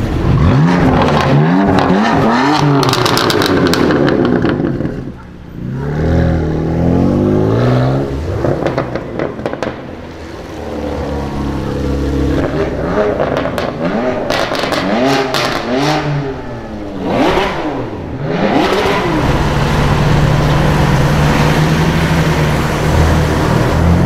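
BMW M4 twin-turbo straight-six engines with aftermarket sport exhausts, revved repeatedly at low speed: the engine note rises and falls several times, with clusters of sharp exhaust crackles and pops on the lift-off. Near the end it settles into a steady low drone.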